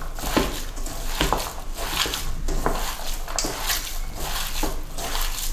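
Hands kneading raw minced beef with chopped onion and herbs in a stainless steel bowl: wet squishing and rubbing, with many small irregular clicks of fingers against the metal bowl.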